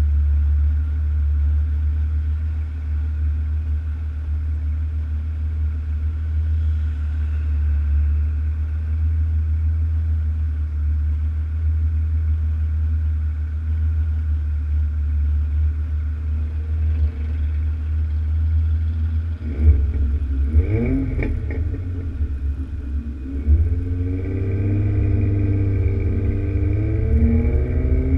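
Alfa Romeo GTV6's Busso V6 exhaust idling with a steady low rumble. About twenty seconds in, the car pulls away and the engine revs up under acceleration, its pitch rising, dipping briefly, then climbing again.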